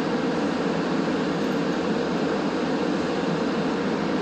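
Steady hum and hiss inside a Montreal Metro car standing at a station platform, at an even level throughout.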